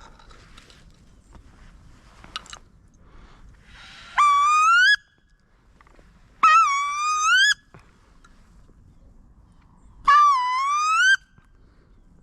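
Three loud, squealing wood duck calls, each about a second long and rising in pitch at the end.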